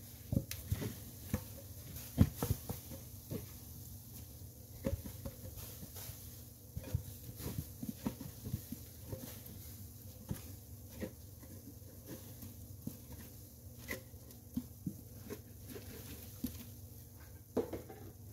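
Soapy sponge squeezed and worked by hand: irregular wet squelches and small pops, the loudest about two seconds in.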